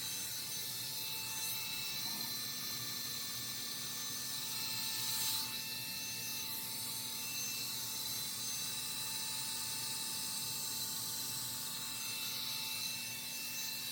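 Hot air brush hair dryer running steadily: a rush of blown air with a steady motor whine. A low hum joins about two seconds in, and the air swells briefly louder about five seconds in.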